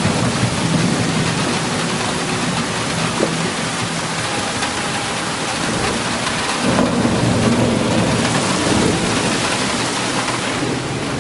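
Heavy rain pouring steadily, with a low rumble rising under it about seven seconds in.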